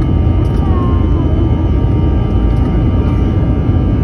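Jet engines and airflow heard inside the cabin of an Airbus A321 climbing after takeoff: a loud, steady low rumble with faint steady whining tones above it.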